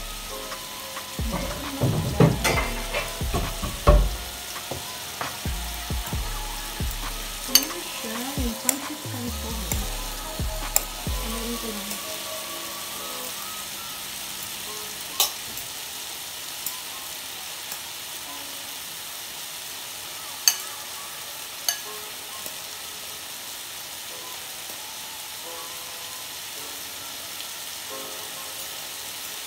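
Food sizzling in a frying pan, a steady hiss throughout. Knocks and clatter fill the first twelve seconds, and a few sharp clinks of a utensil against a bowl follow.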